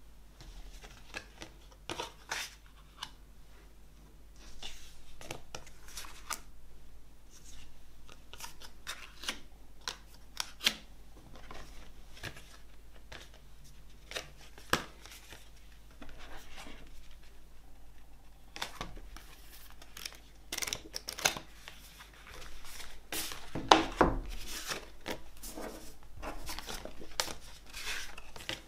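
Hands handling a cardboard album box set and its paper contents: rustling, sliding and many sharp taps and clicks of card and paper, with a louder knock near the end.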